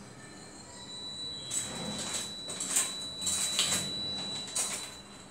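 Stainless steel utensils clinking and rattling as a hand rummages through a pull-out kitchen drawer basket, starting about a second and a half in.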